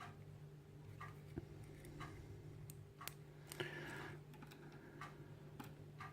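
Faint clock ticking about once a second, with a few extra small clicks and a short rustle about three and a half seconds in, from small parts being handled on the bench. A steady low hum runs underneath.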